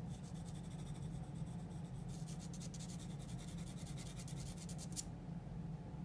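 Graphite pencil scratching across drawing paper in a quick run of short shading strokes. The strokes grow louder about two seconds in and stop about five seconds in, over a steady low room hum.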